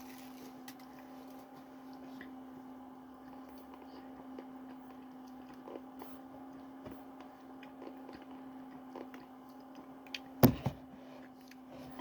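Steady low hum with faint scattered clicks, then a sharp knock about ten and a half seconds in, followed at once by a smaller one.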